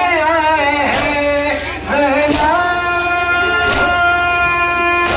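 A nauha, a Shia lament, sung by a single voice holding long notes. A sharp beat falls about every second and a half, the chest-beating (matam) that keeps time.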